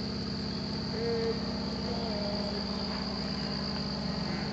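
Steady high-pitched trilling of insects, unbroken throughout, with a couple of faint short tones about one and two seconds in.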